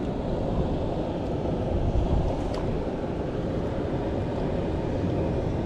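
Steady rushing noise of a shallow river running over rocks, mixed with wind on the microphone.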